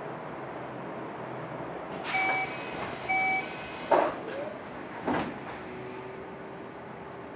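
Keio 7000-series commuter train car with its sliding doors closing before departure: two short two-tone electronic beeps about a second apart, then two sharp door thuds. A steady low hum sets in near the end.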